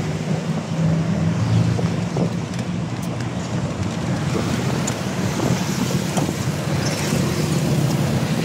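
Small truck's engine running and road noise heard from its open cargo bed while moving, with wind buffeting the microphone. A steady low hum under a constant rush of noise.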